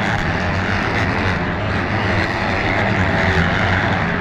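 Several motocross bikes racing around the track at once, their engines overlapping and rising and falling in pitch as the riders rev and shift.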